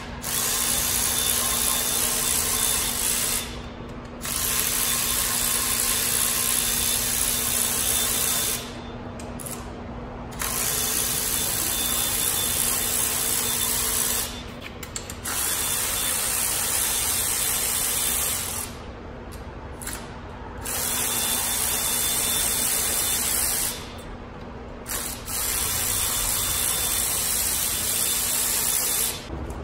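Cordless electric ratchet with a 12 mm socket running in six spells of three to four seconds each, with a steady whine, spinning out the bolts of a 2JZ engine's oil pan girdle one after another.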